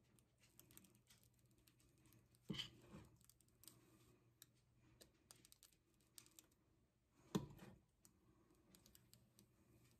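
Faint clicks and two louder knocks, about two and a half seconds and seven and a half seconds in, of a metal spoon against a ceramic frying pan and glass mixing bowl as pancake batter is spooned into the pan.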